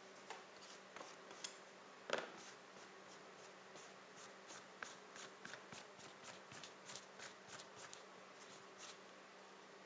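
Light clicks and taps of small parts and tools being handled by hand: one sharper click about two seconds in, then a quick run of soft ticks, over a faint steady hum.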